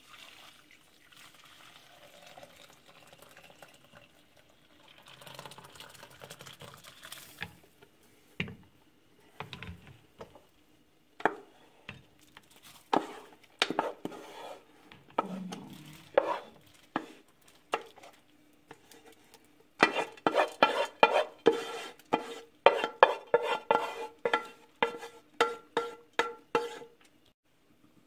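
Rinse water pouring off soaked rice through a sieve, then scattered knocks and scraping as the rice is pushed out of a metal pot, ending in a quick run of ringing metallic knocks on the pot.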